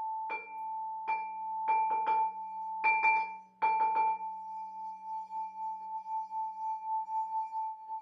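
Crystal singing bowls struck again and again, about ten quick strikes in the first four seconds on one clear high-ringing bowl. That bowl then rings on alone, its tone swelling and fading in a steady pulse. A lower bowl hums underneath and fades out near the end.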